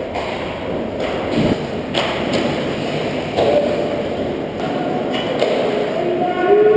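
Ice hockey play heard from behind the goal: a steady scrape of skates on ice, broken by several sharp knocks of sticks and puck, with a few held tones near the end.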